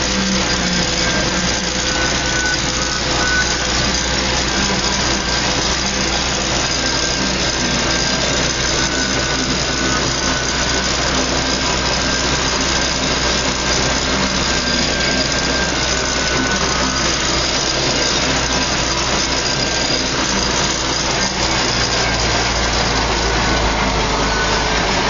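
Belarus 800-series tractor's diesel engine running steadily under load, heard from inside the cab while it pulls a seed drill across a field.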